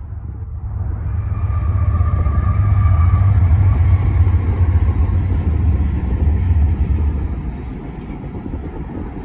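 Diesel freight locomotive passing close by at speed. Its deep engine rumble builds, peaks, then eases off into the rolling of freight cars on the rails.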